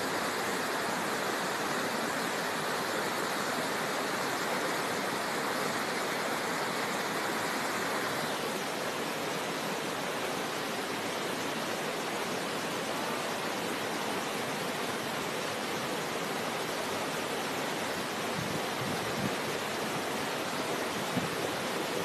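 Steady rush of fast-flowing river water, an even noise with no pauses. About eight seconds in it turns a little duller.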